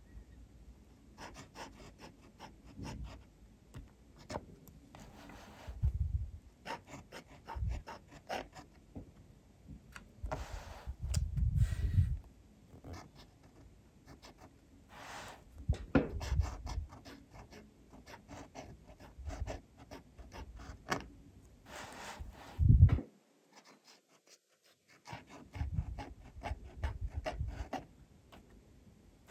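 Graf von Faber-Castell Classic fountain pen nib scratching across paper in short, irregular handwriting strokes, with a few louder low thumps among them. The writing stops for about two seconds near the end, then starts again.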